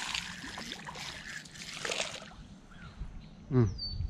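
A short vocal sound from a person, falling in pitch, near the end, over a steady background hiss with a brief burst of noise about two seconds in.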